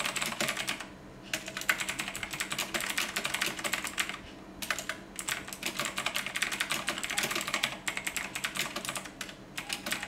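Typing on an NYK KM-09 mechanical keyboard with clicky Kailh Blue switches: dense runs of sharp key clicks, broken by a couple of short pauses.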